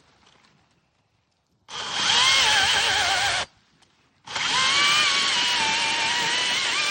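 Makita GCU03 40-volt cordless chainsaw with a 16-inch bar running: a loud electric motor and chain whine with a wavering pitch. It is triggered about two seconds in, released after nearly two seconds, and started again about four seconds in.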